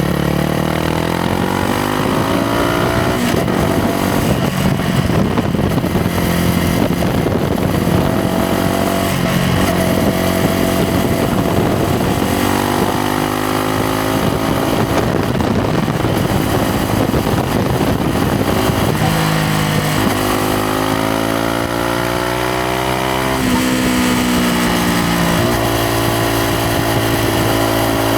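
Yamaha MT-125's single-cylinder four-stroke engine and exhaust under way, climbing in revs through the gears several times, dropping back at each shift, then holding steady revs near the end.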